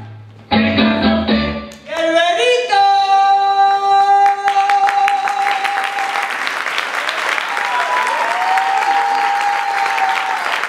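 The backing track cuts off about two seconds in, and a woman's voice holds one long final note into a microphone. Audience applause starts under the held note and carries on after it ends.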